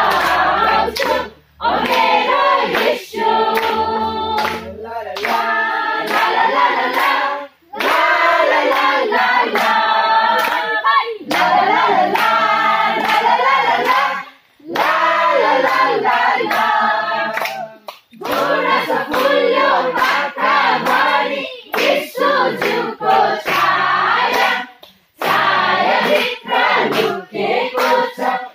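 A church congregation singing a praise song together in phrases, with rhythmic hand clapping throughout.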